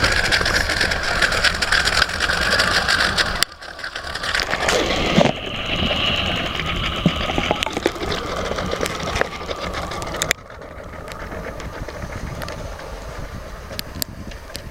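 Boat's 307 Chevy small-block V8 inboard running, mixed with a rushing noise of water and wind. The sound changes abruptly about three and a half seconds in and again about ten seconds in, quieter after the second change.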